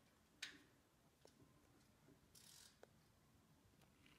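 Near silence: room tone with a few faint scattered clicks and a brief soft rustle.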